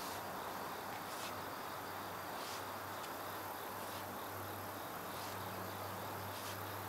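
Hoe blade scraping through soil at intervals of one to two seconds as a garlic-chive row is earthed up, over a steady background of insects chirping.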